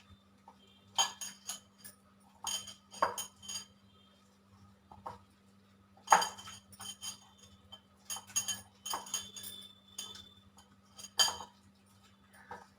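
A metal utensil clinking and knocking against a bowl in irregular clusters as boiled green bananas are mashed, with a faint steady hum underneath.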